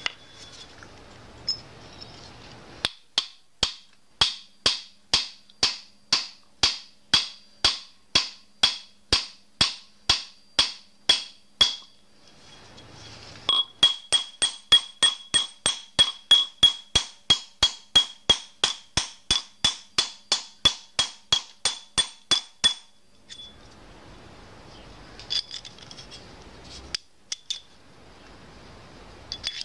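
Small hammer tapping a short steel tube on a steel block, each blow a sharp metal clink with a high ring. Two long steady runs of strikes: the first at about two and a half a second, then a faster one at about three and a half a second.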